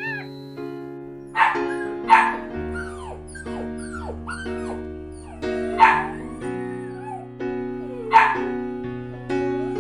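A dog barking four times, with short falling yips and whimpers in between, over steady background music.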